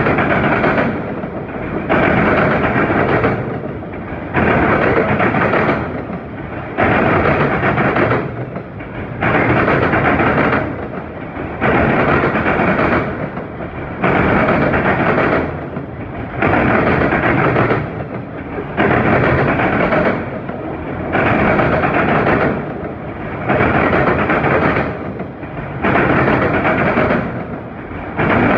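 A freight train of auto rack cars rolling past close by. The rush of wheels on rail swells and drops in an even rhythm, about once every two seconds as each car goes by.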